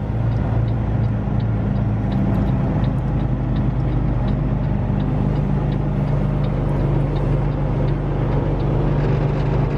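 Semi truck's diesel engine running steadily, a low even drone heard from inside the cab, with a faint ticking about twice a second.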